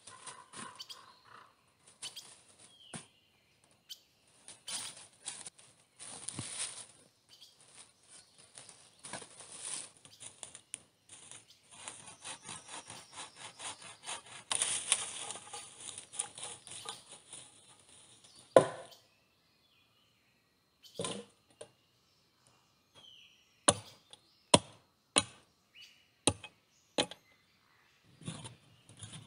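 Shovel digging into the forest floor: the blade scrapes and crunches through soil and dry leaf litter in irregular strokes. Near the end comes a run of separate sharp strikes about a second apart as a spade chops into sandy earth.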